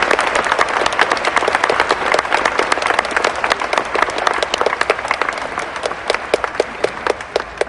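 A large audience applauding, the clapping thinning out to scattered separate claps near the end.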